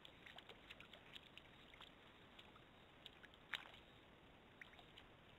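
Faint splashing and dripping of shallow water as a giant anteater rolls and moves while bathing, with scattered soft ticks and one sharper splash about three and a half seconds in, over a steady hiss.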